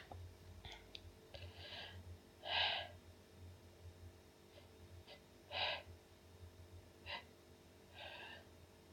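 A woman sneezing over and over, with short sharp breaths between the sneezes: five brief bursts, the two strongest about 2.5 and 5.5 seconds in.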